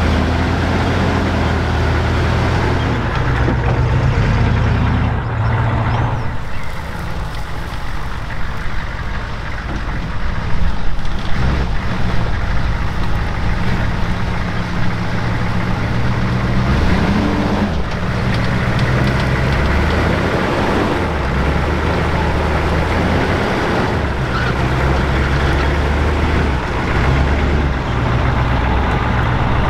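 HMMWV's V8 diesel engine running on minimal throttle as the truck crawls over rough off-road ground, its revs rising and falling.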